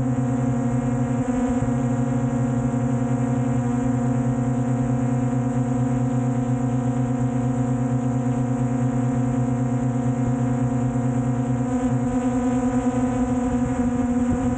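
Quadcopter drone's propellers running in a steady, even-pitched hum, heard from just beneath the drone.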